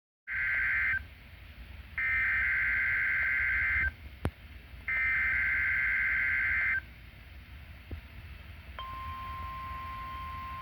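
NOAA Weather Radio SAME alert header: three bursts of warbling digital data tones, each about two seconds long with a second's gap between them. Near the end the steady 1050 Hz weather-radio alert tone starts. A sharp click comes about four seconds in, over a low hum from the radio receiver.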